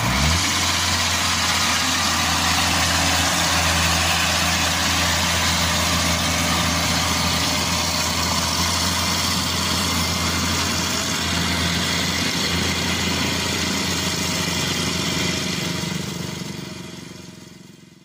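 Inari rice combine harvester's engine revving up as the sound begins, then running steadily with a constant low hum and broad mechanical clatter from the machine. The sound fades out near the end.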